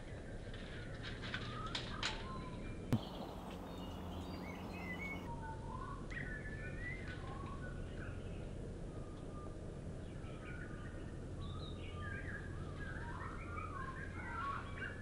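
Birds chirping and singing in short, varied phrases over a steady low background rumble, the calls growing busier near the end. A single sharp click about three seconds in.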